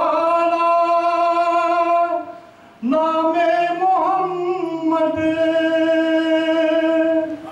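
A man singing a naat without accompaniment. He holds one long sustained note, breaks briefly about two seconds in, then holds a second long note almost to the end.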